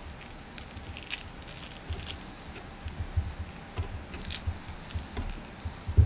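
Hands rolling raw pork belly slices around scallion pieces on a wooden cutting board: soft, irregular squishes and rustles of the meat, with light taps and thumps on the board.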